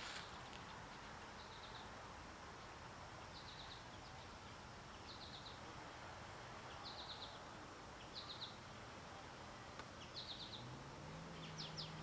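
A bird repeating a short call of three or four quick high notes about every two seconds, over a faint low drone that steps up in pitch about ten and a half seconds in.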